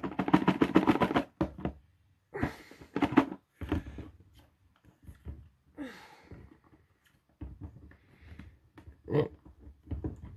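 Hands working the tight-fitting lid of a cardboard game box loose: fingers scraping, rubbing and tapping on the card. A rapid run of short scrapes comes in the first second or so, then irregular bursts with quiet gaps.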